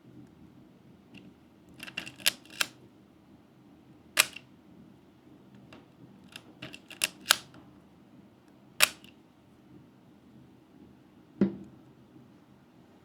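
Leica M rangefinder camera shutter firing repeatedly: sharp mechanical clicks in irregular groups, some in quick succession, with a duller knock near the end.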